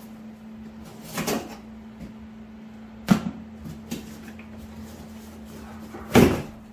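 Four separate clunks and knocks as parts and tools are handled on a garage bench, the loudest about six seconds in, over a steady electrical hum.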